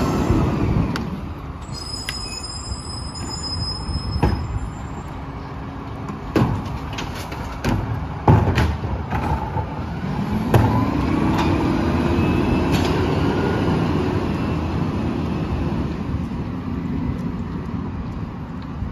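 Diesel engine of a Peterbilt 567 rear-load garbage truck running, with several sharp bangs of trash carts knocking against the rear hopper as they are emptied. About halfway through, the engine revs up and settles back as the Heil Durapack packer runs.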